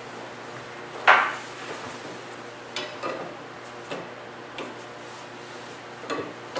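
Clinks and clicks of small hardware and plastic parts being handled during assembly on aluminium extrusion: one sharp, ringing clink about a second in, then several lighter clicks.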